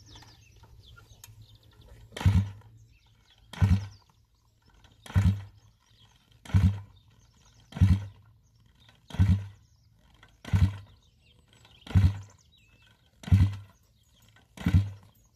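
Kick-starter of a 170cc four-stroke Detroit Stomp pit bike engine being kicked over again and again, about one kick every second and a half, ten times; each kick turns the engine over with a short chuff, but it does not catch, as is usual for this bike on a cold start after sitting over winter.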